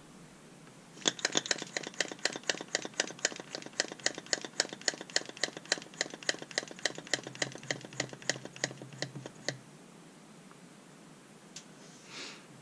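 Rapid, even mechanical clicking, about five clicks a second, starting about a second in and stopping after some eight seconds.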